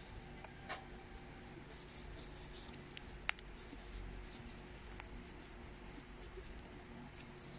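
Pieces of corrugated cardboard handled and rubbed between fingers: faint scratching and scraping with scattered small clicks, and one sharper tick about three seconds in.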